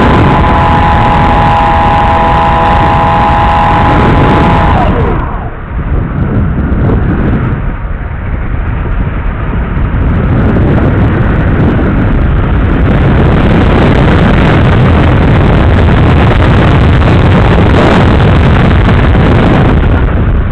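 The RC glider's motor and propeller run with a steady high whine for about five seconds, then the motor is cut and the whine falls away. After that there is only loud rushing wind over the airframe and microphone as the glider flies unpowered.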